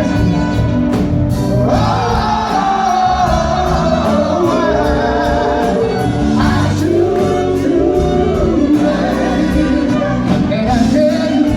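Live band performing a soul song, with singing over bass and a steady drum beat.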